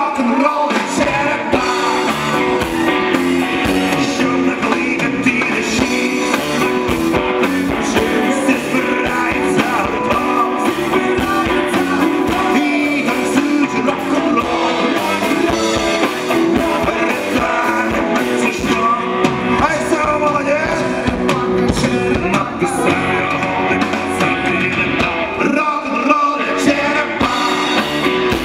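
Live rock band playing on stage: two electric guitars and an upright double bass, with singing. The music is loud and continuous, with no breaks.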